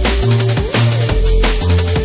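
Background electronic dance music with a steady beat and heavy bass notes, an instrumental stretch with no singing.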